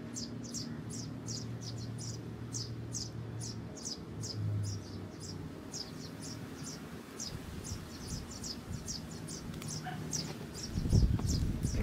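A small bird chirping over and over, short high chirps about three a second. Near the end, wind rumbles on the microphone.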